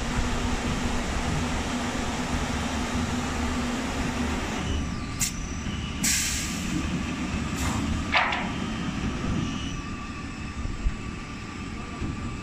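Veneer peeling line machinery running with a steady low rumble, and a few short hisses in the middle.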